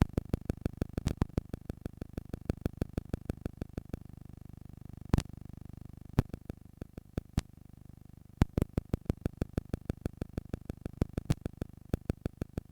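Playback of an old cassette recording: a steady hiss and low hum with runs of sharp clicks, about six or seven a second, stopping and starting with pauses of a second or two.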